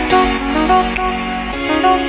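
Instrumental background music: melodic notes changing several times a second over a soft click about once a second.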